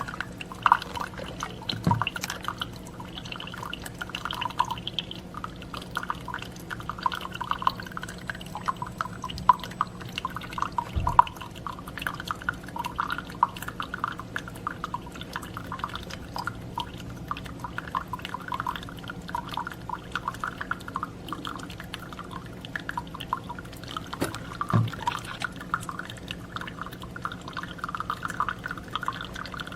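Keurig K-Supreme Plus single-serve pod coffee maker brewing: coffee streams and drips steadily into a cup over a steady low hum. There are a few soft knocks along the way.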